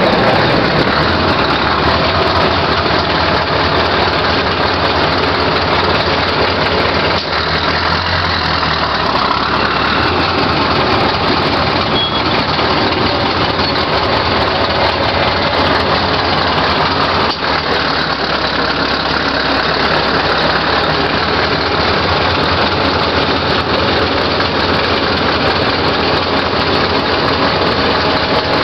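Scania 144L 530's 14-litre turbocharged V8 diesel idling steadily.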